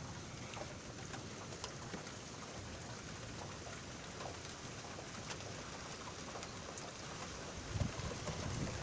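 Steady hiss of light rain with scattered drips during a thunderstorm. A low rumble builds near the end.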